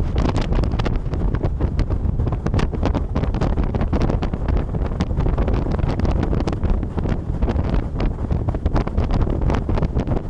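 Wind buffeting the microphone on a small boat under way on a river: a steady low rumble with constant irregular crackling.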